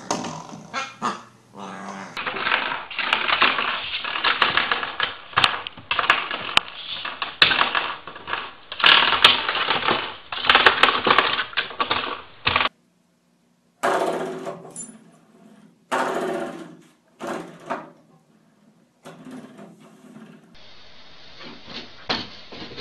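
Puppies playing with spring door stoppers: the coiled springs are flicked and bitten, so they twang and rattle in quick irregular strokes, mixed with puppy growls. The sound breaks off and restarts at the cuts between clips.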